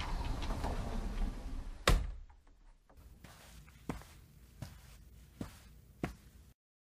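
Rustling handling noise with a low rumble, ending in one sharp knock about two seconds in. Then four soft knocks, evenly spaced less than a second apart, before the sound cuts off near the end.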